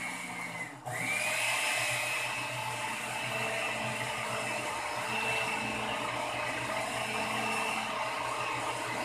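Countertop blender with a glass jar running, blending a leche flan custard mixture of milk and eggs. Its steady motor whine dips briefly about a second in, then climbs back as it spins up again.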